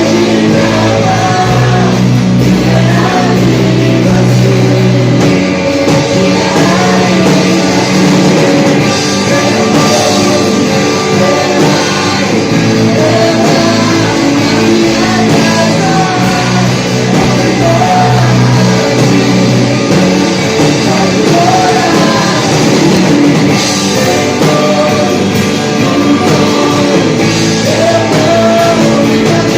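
Loud Christian worship music in a rock style, with a full band of drums and electric guitar and singing over it.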